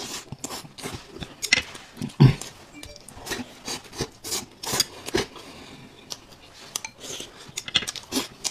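Close-up biting and chewing of a crisp fried chicken cutlet wrapped in lettuce: irregular crunches and crackles, the loudest about two seconds in.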